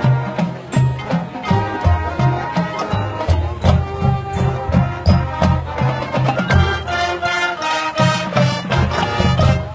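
Marching band playing: brass over a pulsing bass line, with frequent drum and cymbal strikes.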